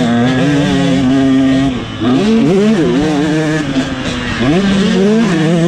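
Minicross (junior motocross) bike engine heard from a camera mounted on the bike, held at high revs, then backing off briefly about two seconds in and revving up and down again, with a rising rev near the end.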